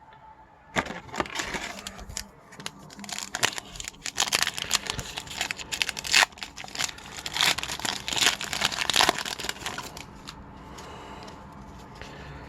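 A foil trading-card pack wrapper being torn open and crinkled in the hands. The rustling and crackling starts about a second in and stops about two seconds before the end.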